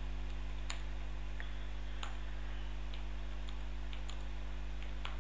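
Computer keyboard keystrokes: several sharp, irregularly spaced clicks as short commands are typed, over a steady low electrical hum.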